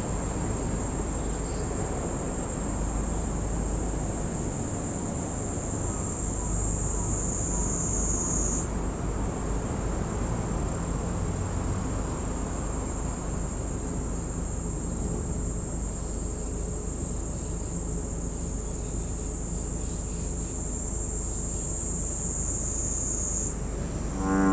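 Insects shrilling in a steady high-pitched chorus that slowly sinks in pitch, jumping back up about eight seconds in and again near the end.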